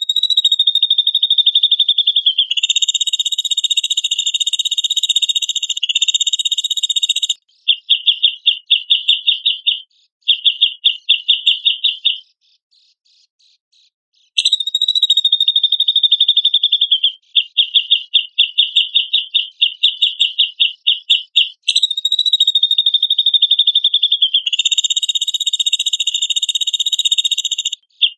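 High, shrill trilling song of a cucak jenggot (grey-cheeked bulbul) played as a bird-training recording: long unbroken trills alternate with runs of rapid separate pulses, about five or six a second, broken by a silent pause of about two seconds midway.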